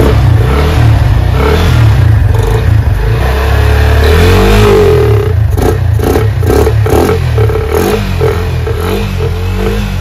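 Yamaha FZ25's single-cylinder engine running with its air filter removed, revved up and down a few times to keep it running while throttle-body cleaner is sprayed into the intake. Short hisses from the spray can come in quick succession in the second half.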